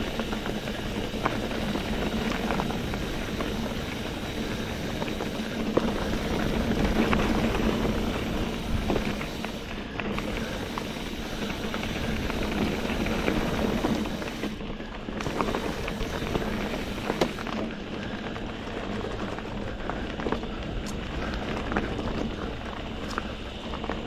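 Mountain bike riding dirt singletrack: a steady rush of tyres rolling over the trail, with scattered clicks and knocks from the bike over rocks and roots.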